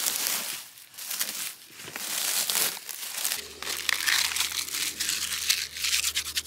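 Dry, papery birch bark crumpled and rubbed between the hands, a crisp crinkling and crackling, as it is worked into fire tinder.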